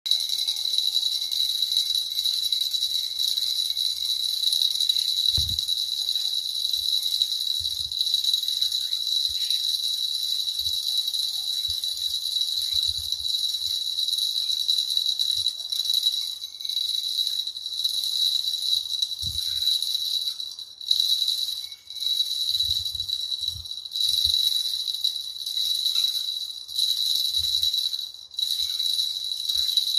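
Small metal jingle bells on a hanging bird toy jingling nonstop as a conure shakes them with its beak, with a few brief pauses in the last third.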